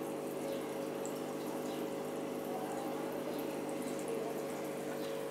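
Aquarium pump running with a steady hum, and water trickling and bubbling in the tank.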